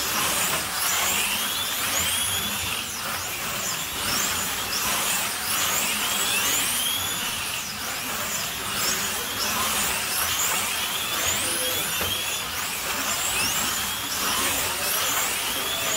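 Slot cars racing on a large multi-lane track: their small electric motors whine, the pitch sweeping up and down every couple of seconds.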